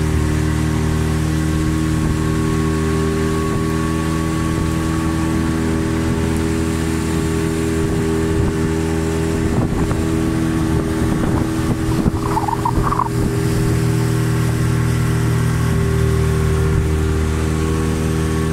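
Boat's outboard motor running at a steady speed while under way.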